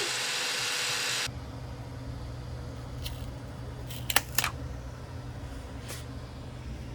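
A steady hiss that cuts off suddenly about a second in, then a low hum with a few light, sharp clicks of 3D-printed PLA plastic parts being handled and knocked together.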